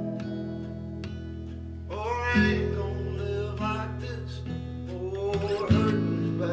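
Background music: strummed acoustic guitar, with a singing voice coming in about two seconds in.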